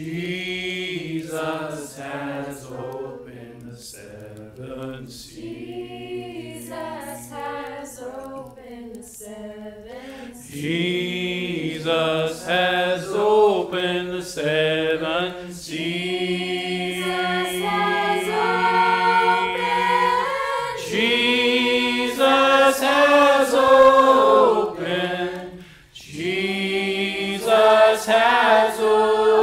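A group of voices singing a worship song without instruments. It is softer for about the first ten seconds and fuller after that, with a brief break near the end.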